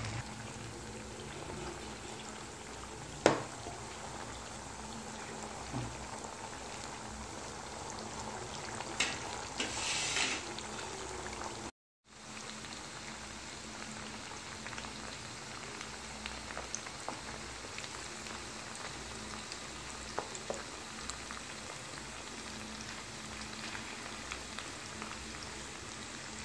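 Batter-coated chicken pieces deep-frying in hot oil: a steady bubbling sizzle, with a sharp click about three seconds in and a brief louder crackle around ten seconds.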